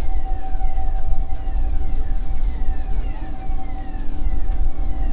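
Boat engine running with a steady hum over a low rumble. A faint whistle sweeps downward again and again, well under two times a second.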